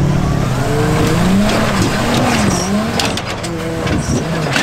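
Engine of a lifted off-road pickup truck revving up and down as it claws its way up a steep sand hill.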